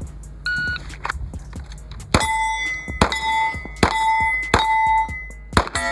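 A shot timer beeps once, then a handgun fires five shots about 0.8 s apart, each hit on a steel plate answered by a ringing clang, a run of white plates and a stopper plate.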